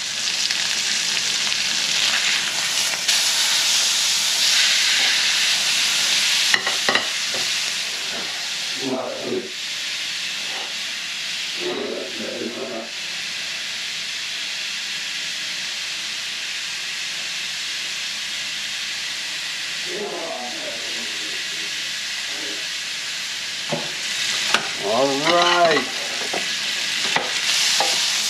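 Venison backstrap frying in butter in a pan: a steady sizzle, louder for the first several seconds after the meat is turned, then settling to an even frying hiss.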